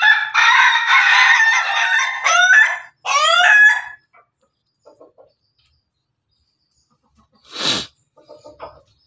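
A rooster crowing, one long loud call of about four seconds that ends in a quick run of rising, stuttering notes, the laughing crow of an ayam ketawa. A short rushing whoosh follows near the end.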